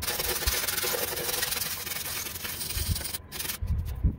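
Hand wire brush scrubbing rapidly back and forth over a rusty steel lawn mower deck, scraping off flaking paint and rust. The scrubbing stops about three seconds in, followed by a few dull bumps.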